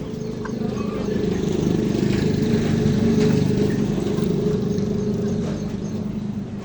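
A motor vehicle's engine passing close by, its hum swelling to a peak about halfway through and then fading away.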